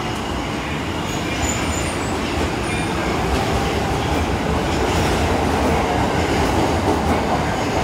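Subway train running on the rails in a station: a steady rumble that grows a little louder partway through, with a few short high wheel squeals in the first few seconds.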